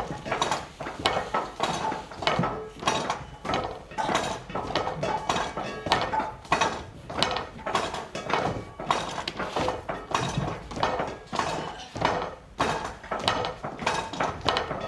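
Irregular, overlapping knocks, thuds and clinks of objects being handled and struck, two or three a second, like wood and dishes clattering.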